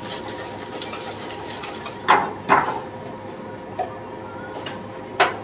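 Ice rattling fast inside a metal cocktail shaker being shaken hard, stopping a little under two seconds in. Then come two loud knocks with a short ring, a few light taps and one sharp click near the end.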